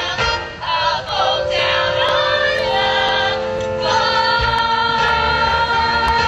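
Young cast singing together in a musical-theatre number over instrumental accompaniment. From about four seconds in, the voices hold a long note.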